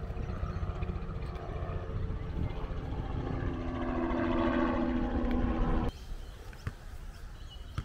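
A passing vehicle's engine grows louder over several seconds as its pitch glides slightly downward, over a steady low rumble. It cuts off abruptly about six seconds in, leaving quieter outdoor background.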